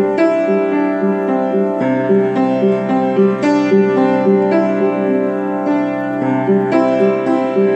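Improvised solo music on a piano-like keyboard: a moving line of notes over a low bass note held for several seconds, changing again near the end.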